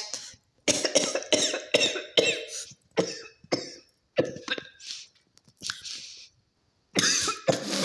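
A person coughing repeatedly: a fit of about eight short coughs over some five seconds, with some throat clearing, then a louder vocal sound near the end.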